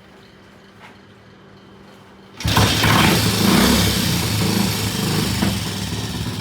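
Triumph T20M Tiger Cub single-cylinder motorcycle engine being started: it fires suddenly about two and a half seconds in and keeps running, unsteadily at first, then settling into a fast idle.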